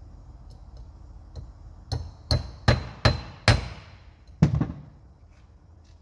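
Hammer blows on a steel truck door hinge held in a bench vise, driving a new bushing into the hinge. Six sharp metallic strikes, five in quick succession and a last one about a second later, some leaving a short high ring.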